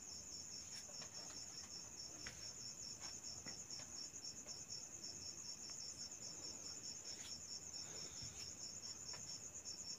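Cricket chirping steadily: a faint, high-pitched trill pulsing about four times a second.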